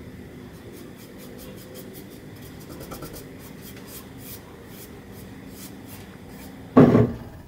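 Bristles of a wide paintbrush brushing a wet finish across a wooden tabletop: soft scratchy rubbing strokes. A loud dull thump comes near the end.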